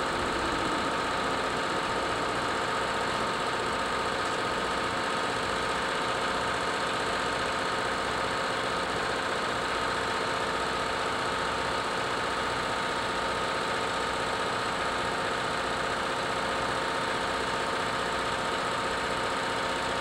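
Engine of a bucket truck (aerial lift) idling steadily, with an even low throb.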